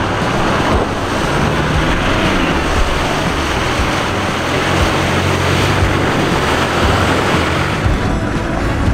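Land Rover Defender 300Tdi wading slowly through a shallow ford: a steady rush of splashing water over the diesel engine running at low revs, with music underneath.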